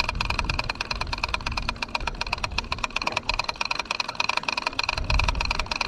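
Fishing reel being wound in with a fish on, giving a fast, even run of clicks, about ten a second, over a low rumble.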